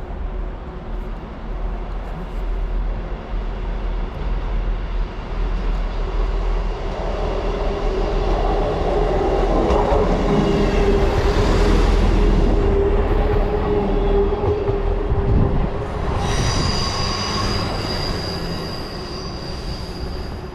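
A train running past, its steady running tone growing louder to a peak about halfway through, then a high-pitched wheel squeal starting near the end.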